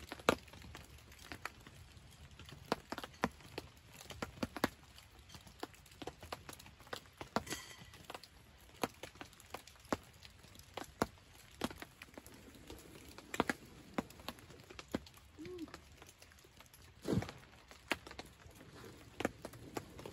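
Raindrops tapping on a tarp overhead: scattered, irregular sharp taps, a loud one about seventeen seconds in.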